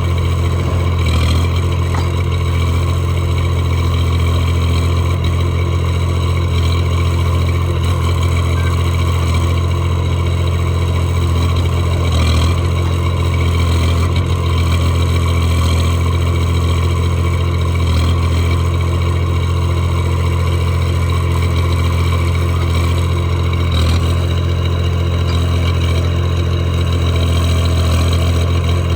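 Mini backhoe loader's engine running at a steady speed.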